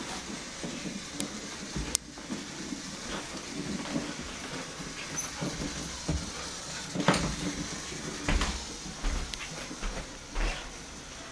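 Small motorized robot mouse toy running over a hardwood floor with a steady rattling whir, with scattered sharp clicks and knocks, a sharp one about two seconds in and a heavier one around seven seconds in.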